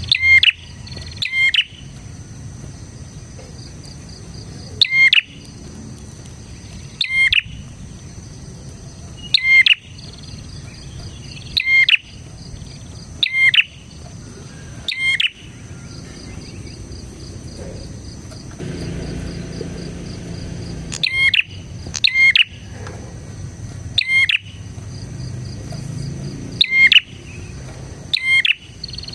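Prenjak (prinia) calling: loud, short, sharp chirps repeated about every one to two seconds, with a pause of several seconds midway. A steady high insect drone runs underneath.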